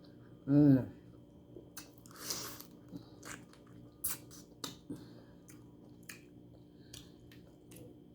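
Close-up eating sounds from shrimp: chewing, wet mouth clicks and smacks scattered throughout, with a longer slurp about two seconds in. A short hummed 'mm' comes about half a second in.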